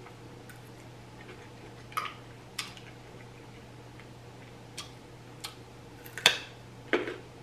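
Scattered sharp clicks and clinks of mussel shells and a fork knocking against each other and a glass baking dish as cooked mussels are picked out and eaten, about half a dozen in all, the loudest near the end.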